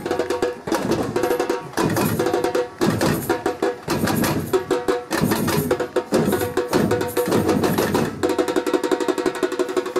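Batucada percussion ensemble playing a samba rhythm on drums. About eight seconds in, the pattern changes to a fast, even run of strokes.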